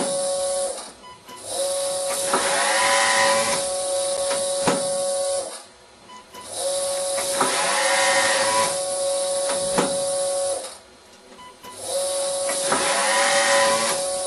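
Vacuumatic Tornado TCP1 disc-type paper counting machine counting a stack of sheets, run after run. A short run ends about a second in. Then come three counts of about four seconds each, separated by brief pauses, each a hiss and steady hum with a whine mid-count and a sharp click near its end.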